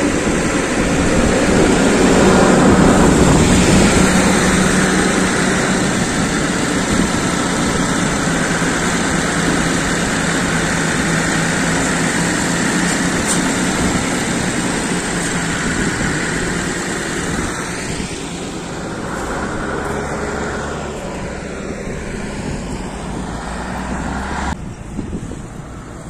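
Engine of a loader running steadily while it lifts bulk bags of potatoes into a truck, with a low hum under a dense noise; the sound drops somewhat about 18 seconds in and again near the end.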